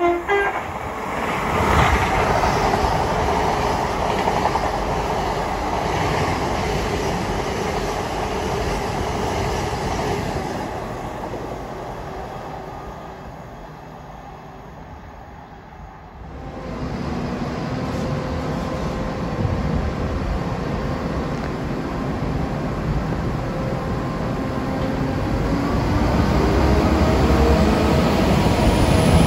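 Trains at stations: a Class 800-series Intercity Express Train running through at speed, its noise fading away. This is followed by a Transport for Wales Class 197 diesel multiple unit at the platform, its engines running with a steady low drone that grows louder near the end.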